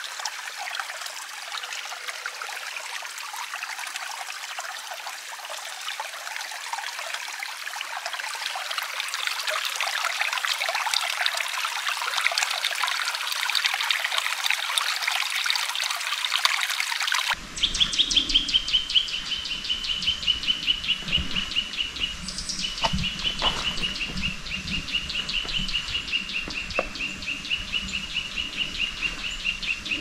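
Running water trickling and splashing in a mountain stream. A little over halfway through the recording cuts abruptly to a steady, high-pitched trill that wavers slightly in pitch, over a low rumble with a few faint knocks.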